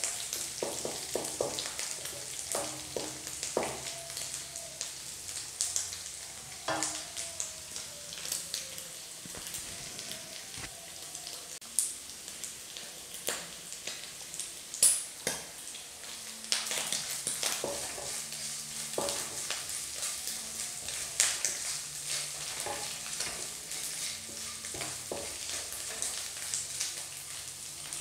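Chicken pieces frying in hot oil in a non-stick pan until golden brown: a steady sizzle with scattered crackles of spitting oil. A wooden spatula stirs and scrapes them now and then.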